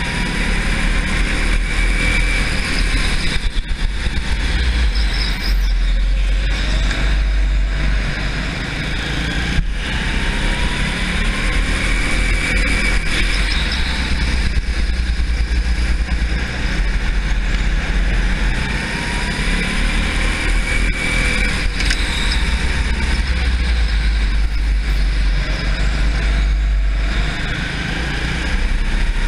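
Racing kart motor running hard through a lap. Its pitch rises several times as the kart accelerates out of corners.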